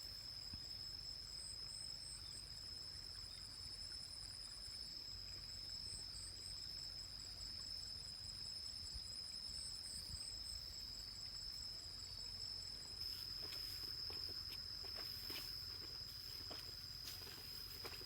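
Forest insects trilling: one steady high buzz held throughout, with a fainter, higher pulsing trill over it. From about two-thirds of the way in, light scattered clicks or rustles join.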